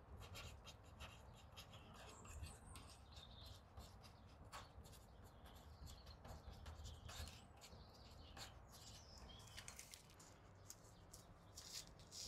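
Faint scratching of a marker pen writing on a plastic plant label, in many short strokes.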